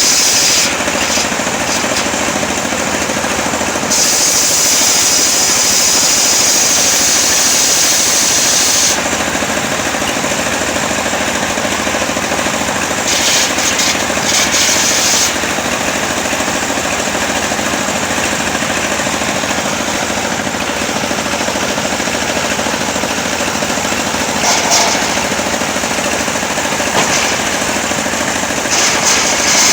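Engine-driven homemade circular sawmill running steadily while its blade rips lengthwise through a coconut log. A high cutting whine grows louder for several seconds at a time: early on, again around the middle, and briefly near the end.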